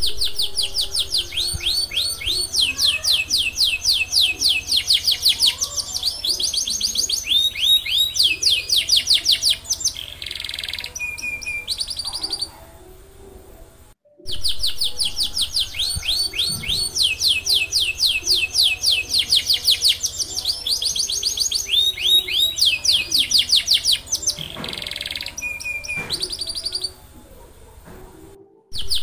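Canary singing long, rapid trills of high, fast-repeated falling notes with brief pauses between phrases. The song cuts out briefly about halfway, and the same passage plays again.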